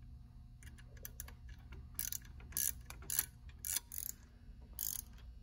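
Socket ratchet wrench clicking in short ratcheting strokes as a 13 mm socket tightens an M8 lock nut on a tractor's forward/reverse lever pin. A few light clicks come first, then louder strokes from about two seconds in.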